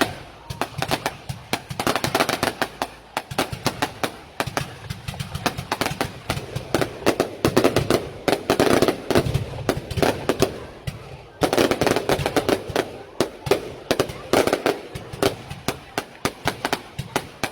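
Aerial fireworks going off in a rapid, continuous string of bangs and crackles, with a brief lull about eleven seconds in before the volleys resume.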